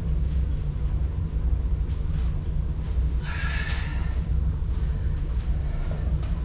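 A steady low mechanical rumble, with a brief higher scrape or hiss about three seconds in.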